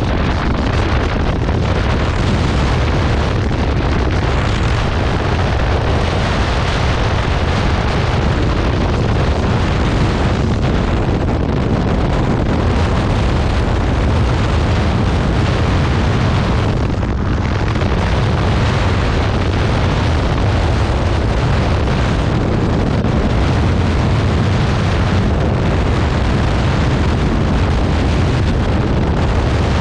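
Heavy, steady wind buffeting and rushing over the microphone of a Honda ADV 150 scooter ridden at about 100 to 115 km/h, drowning out the engine.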